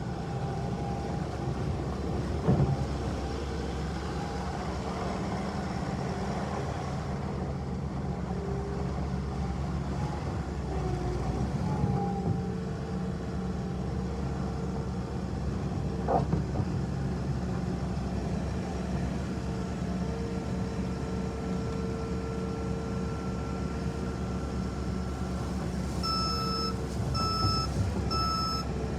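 Bobcat S850 skid steer's diesel engine running steadily, with a few clanks along the way. Near the end its back-up alarm starts beeping in short, regular pulses as the machine reverses.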